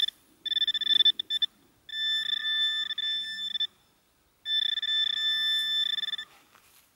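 Metal detecting pinpointer giving a steady high electronic tone in three long stretches, with short breaks, as it is pushed through a pile of dug soil: it is signalling metal close by. Faint crumbling and scraping of soil underneath.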